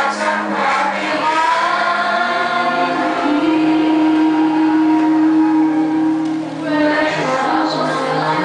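A group of young voices singing together, holding one long note through the middle before the next phrase starts.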